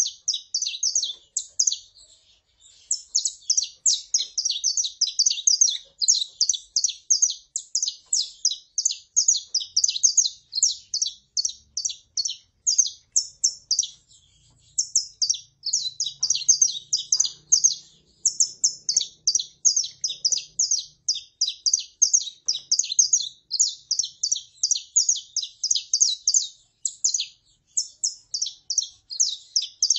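Saffron finches calling and singing: a rapid, steady run of short high chirps, about four a second, broken by a few brief pauses.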